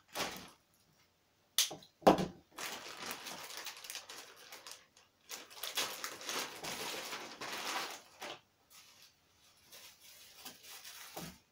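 A clear plastic packaging bag crinkling and rustling in bursts as it is handled and pulled open, with two sharp snaps about two seconds in.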